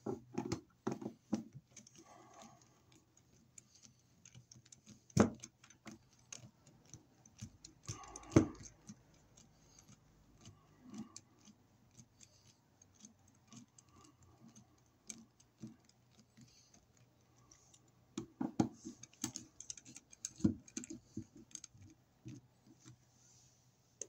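Scattered small clicks, taps and scrapes of a hand screwdriver turning the screws of a wall outlet and knocking against its metal parts, with two louder knocks about five and eight seconds in and a quick run of clicks near the end.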